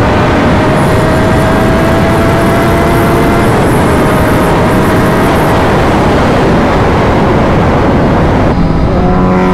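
Wind rushing loudly over a motorcycle rider's helmet camera at highway speed, with the sport bike's engine running underneath, its pitch climbing slowly. About a second before the end the wind noise drops and the engine note comes through clearly.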